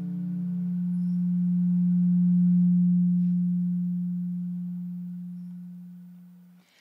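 Sape, the carved wooden lute of Borneo, holding its final low note as a steady pure hum that swells for about two and a half seconds and then slowly fades away. The higher notes of the last chord die out within the first second.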